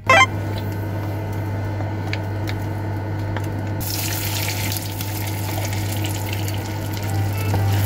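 Butter sizzling in a hot nonstick frying pan over a steady low hum, after a brief loud noise at the very start. About four seconds in, beaten eggs are poured into the melted butter and the sizzling turns louder and brighter.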